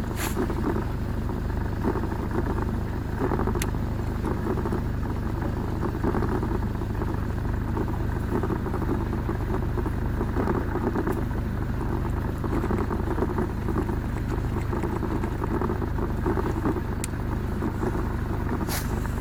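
A boat motor running at a steady low drone, with a few faint clicks.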